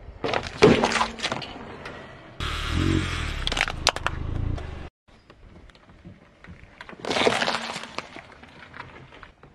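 A car tyre rolling over and crushing objects on asphalt in three short cuts: a cardboard juice carton bursting, then a plastic toy cracking and breaking with the car's engine running low underneath, then a red pepper squashing.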